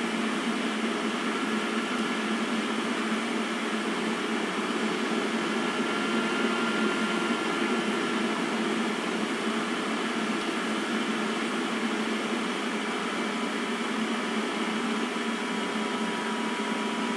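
Steady mechanical hum with a faint whine, unchanging throughout: room background noise of the fan or air-conditioner kind.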